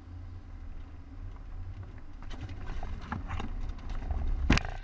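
A 4x4's engine rumbling low as it crawls through a puddle and up over rock, with a series of knocks and clunks from the tyres and suspension that ends in one loud thump a little before the end.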